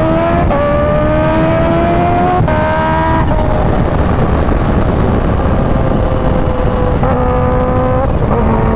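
2016 Kawasaki Ninja H2's supercharged inline-four engine accelerating at freeway speed, its pitch rising and dropping twice as it shifts up. It then eases off so that heavy wind rush takes over, and settles into a steady cruise in the last couple of seconds.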